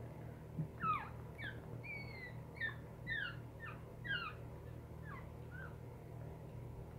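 Newborn puppy squeaking: a string of about ten short, high squeaks, most falling in pitch, one drawn out a little longer, fading out after about five seconds.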